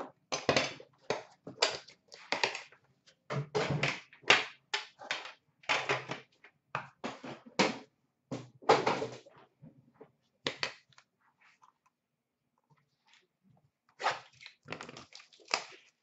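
Handling noise from a tin of hockey cards being picked up and unwrapped: many short rustles, crinkles and knocks in quick clusters, a few seconds' lull, then more near the end.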